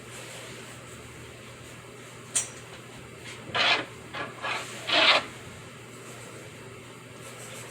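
A pencil scratching on paper in a few short strokes, after a single sharp tap, over a steady white-noise hiss.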